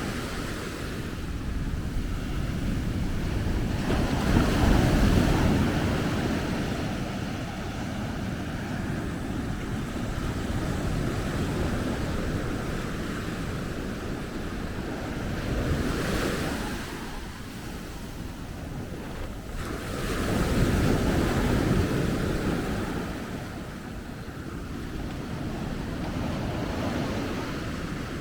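Ocean surf breaking on a beach, a continuous wash of water that swells louder as waves come in, most strongly twice, a few seconds in and again about two thirds of the way through, with wind rumbling on the microphone.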